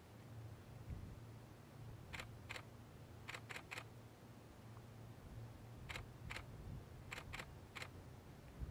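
DSLR camera shutter firing, about ten sharp clicks in short groups of two or three, over a faint low hum.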